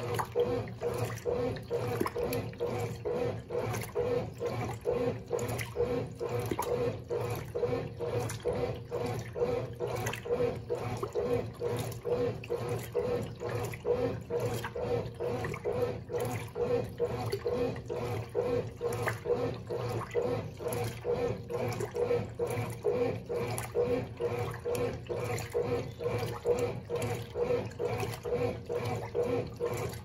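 A 1992 Brastemp Baby Mondial 4 kg top-loading washing machine agitating a load of clothes in water. Its Dual Action agitator sloshes the wash in an even rhythm, about twice a second, over the steady hum of the motor.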